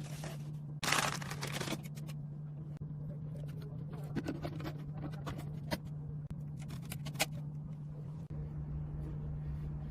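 Handling noises: a rustle about a second in and several sharp clicks later, over a steady low hum.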